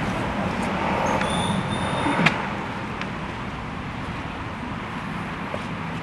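Road traffic passing, a steady noise that eases off after about two seconds, with a sharp click just after and a light tick a second later.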